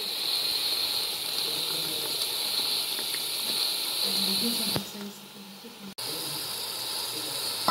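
Masala gravy sizzling and bubbling in a metal pot, a steady hiss. It drops away after a click about five seconds in and resumes shortly after.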